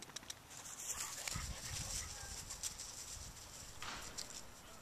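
Crackling, rustling steps through dry grass, with many short clicks and a low thump about a second and a half in.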